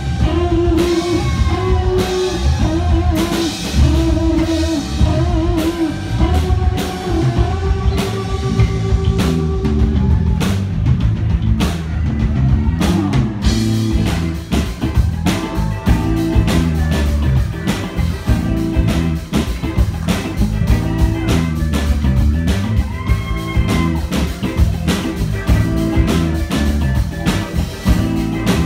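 Live rock band playing: electric guitars with bending lead lines over bass guitar and a drum kit. About halfway through, the drums open up with steady cymbals and the band plays fuller.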